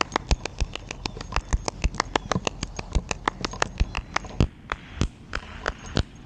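Rapid, irregular clicking and tapping, several sharp ticks a second: handling rattle from a camera rig carried on the body as the pilot moves.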